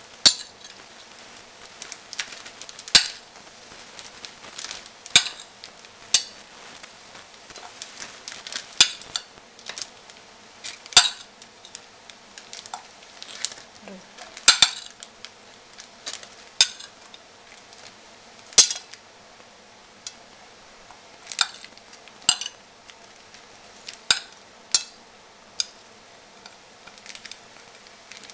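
Metal spoon clinking and scraping on a ceramic plate, sharp clicks every second or two, some much louder than others, as part-cooked potato strips are scooped off the plate into a plastic zip-lock bag.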